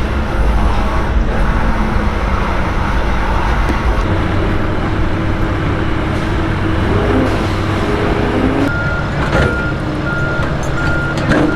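Heavy vehicle engine running amid street traffic on a construction site. About three-quarters of the way in, a reversing alarm starts beeping at a steady rate of roughly two beeps a second.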